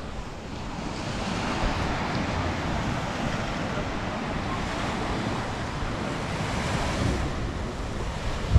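Ocean surf washing against a rocky shoreline in a steady rush of water, with wind buffeting the microphone.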